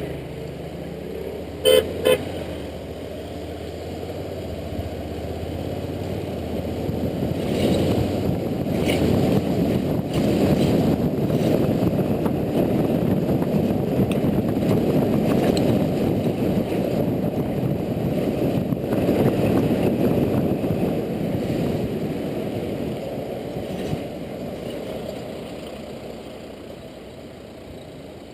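A vehicle horn gives two short toots. Then a Honda Integra NC750D's riding noise follows, wind and road noise over its engine, which builds as it gathers speed and eases off near the end.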